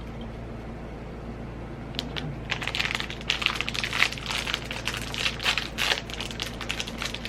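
Plastic snack wrapper being torn open and crinkled: a dense run of irregular crackles that starts about two seconds in, over a low steady hum.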